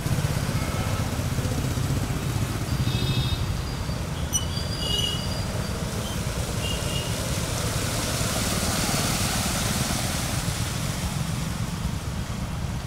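Road traffic on a flooded street: engines running and tyres hissing through standing water, with a few short high-pitched squeaks or beeps a few seconds in.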